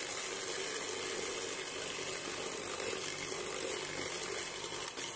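Electric hand mixer running steadily, its beaters whisking eggs into creamed butter and sugar in a plastic bowl.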